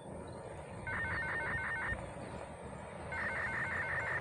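Electronic level-crossing warning bell ringing in two short bursts of rapid, even pulses, each lasting about a second, over a low steady rumble.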